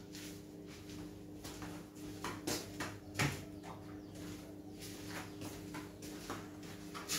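Scattered light knocks and clicks, with a louder knock about three seconds in, over a steady low hum.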